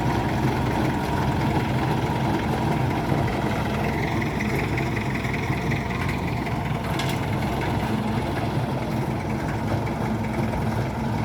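Engine of heavy road-construction machinery running steadily, with a brief click about seven seconds in.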